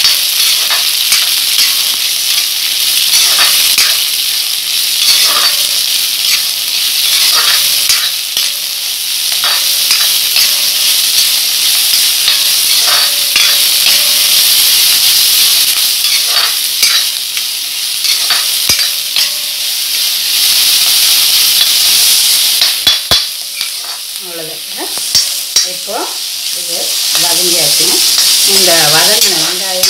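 Chopped onions, green chillies and curry leaves sizzling steadily in hot oil with mustard seeds and chana dal in a heavy black kadai, for an onion tempering. A spoon stirring the mix scrapes against the pan at irregular moments.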